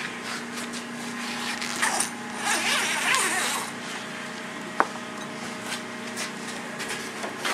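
Rustling and crinkling of a film-covered plastic window sheet and soft fabric door panel being handled, loudest about two to three and a half seconds in, with a sharp click a little under five seconds in. A steady low hum runs underneath.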